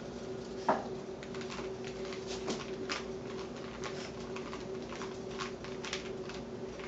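Rubik's cube being turned quickly by hand, an irregular run of small plastic clicks several times a second, over a steady electrical hum. A short, louder sound falling in pitch comes about a second in.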